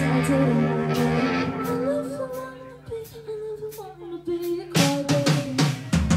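Live rock band playing a song, with guitars, viola, bass and drums. About two seconds in, the music drops to a quieter passage of held and gliding notes. Near the end, drum hits come back in and the full band returns.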